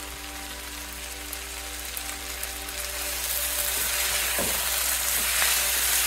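Sliced onions sizzling in hot oil in a pan, getting louder about three seconds in as a spatula stirs and scrapes through them.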